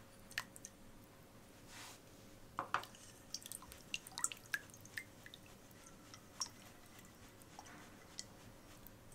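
Salt water being stirred with a silicone spatula in a glass bowl: irregular small splashes and drips, busiest in the middle and tailing off near the end. The salt is tipped in from a cup near the start.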